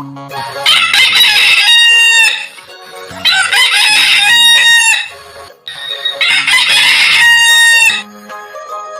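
Rooster crowing three times, each a long drawn-out cock-a-doodle-doo, with light jingly music between the crows.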